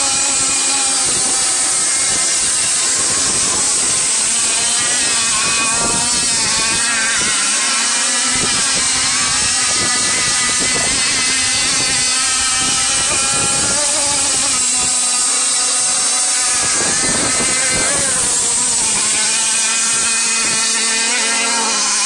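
Small high-revving engines of radio-controlled outrigger and hydroplane racing boats running flat out, a high-pitched whine that rises and falls as the boats speed along and turn.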